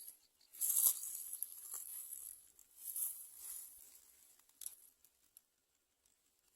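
Dry rustling and crinkling in short bursts, loudest about a second in and again around three seconds, as birds shift about in a grass-and-leaf nest.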